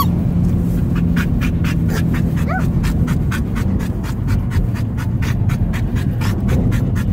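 A dog panting fast and steadily with its mouth wide open, with one short rising whine about two and a half seconds in. The car's steady road and engine hum runs underneath.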